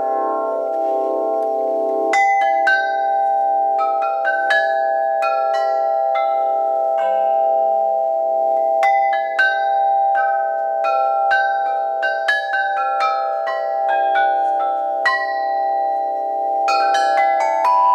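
Celestial Tones, a handmade hybrid of wind chime, orchestra bells and glockenspiel built from metal tubes, played with a mallet: a slow run of single struck notes that ring on, about one or two a second, over a steady ringing hum from lower tubes.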